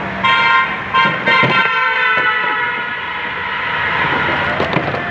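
Three short, high-pitched horn toots in quick succession about a quarter-second to two seconds in, over steady background noise.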